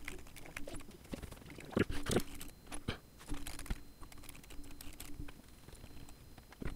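Typing on a computer keyboard: irregular key clicks, with a few louder keystrokes about two seconds in.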